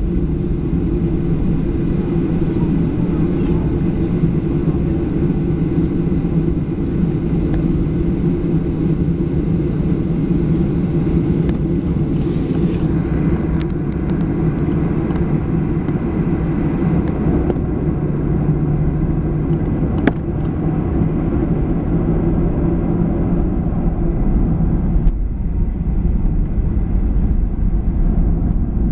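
Boeing 737-800's CFM56 jet engines and airframe during takeoff: a loud, steady low rumble with a hiss above it. The hiss thins about 25 seconds in.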